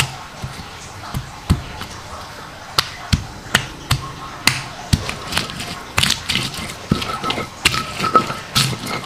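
Hand-held stone pestle striking a flat stone grinding slab, crushing whole shallots and garlic cloves into wet ground chilli: sharp stone-on-stone knocks, spaced out at first and coming faster and closer together in the last few seconds.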